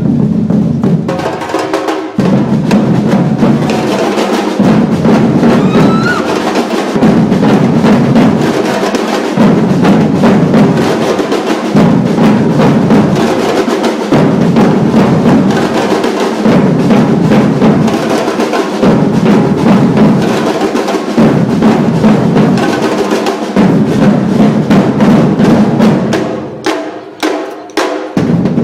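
Percussion ensemble playing a loud, driving drum groove of dense rapid strokes over a low drum pattern that repeats about every two and a half seconds. Near the end the playing drops to a few separate hits before the full groove comes back in.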